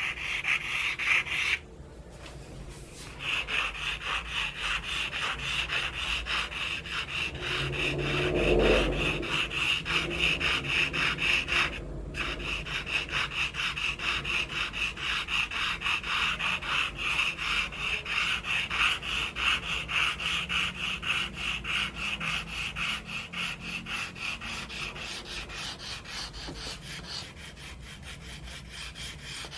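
Charcoal scraping across paper in rapid, repeated strokes, with short pauses about two seconds in and about twelve seconds in, and a low bump about eight seconds in.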